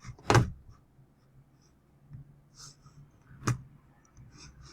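Two sharp computer mouse clicks about three seconds apart, with faint scratching and rustling of the mouse and desk between them.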